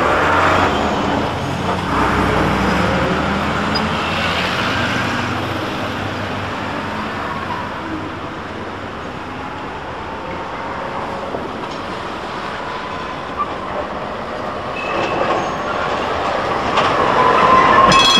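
Yellow Amsterdam articulated tram running on street track around a curve, with steady rolling noise that dips in the middle and grows louder as it comes close. Near the end its wheels squeal on the curve, a high tone that rises in pitch.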